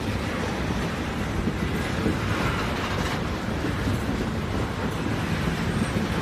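Train rolling along the track: a steady, dense rumble of wheels and track noise.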